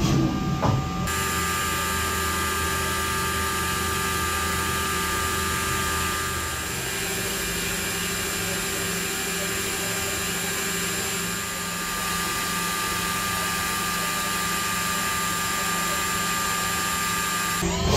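Mazak FJV-250 vertical machining center grinding a quartz plate with an 80 mm grinding tool at 1500 rpm on a shallow 0.03 mm pass: a steady hiss with several steady whining tones. It settles in about a second in, after a few brief irregular sounds.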